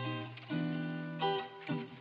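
Background music led by guitar, with held chords changing every half second or so.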